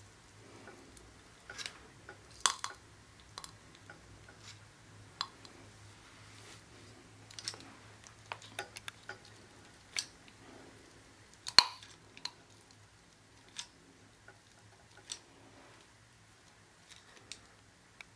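Caulking gun squeezing silicone sealant into a small plastic end cap held on its nozzle: scattered sharp clicks and taps, irregular, the loudest about two-thirds of the way through, over a faint steady hum.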